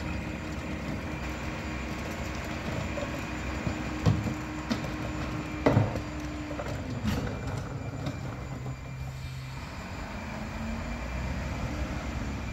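Mack GU garbage truck's diesel engine running steadily at the back of its Leach rear-loader, with sharp bangs of trash cans and bags hitting the hopper about four and six seconds in.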